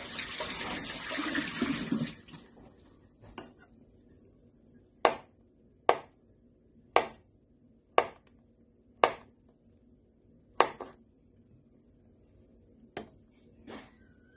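Kitchen tap water running for hand washing, shut off about two seconds in. Then six sharp knocks about a second apart, with two fainter ones near the end.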